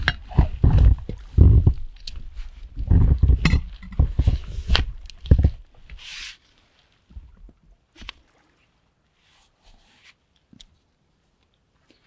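Close handling noise: rustling, scraping and low bumps as clothing and camera gear are moved right by the microphone, dying down after about five seconds to a few faint clicks.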